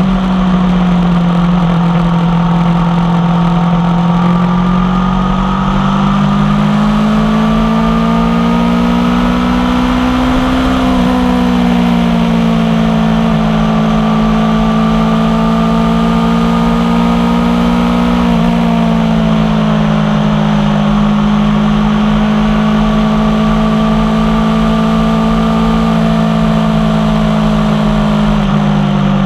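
Aprilia Tuono V4 1100 Factory's 65-degree V4 running through an unbaffled Carbon M4 exhaust while riding at steady road speed. The engine note climbs slowly, drops back about a third of the way in, and eases slightly again a little past halfway.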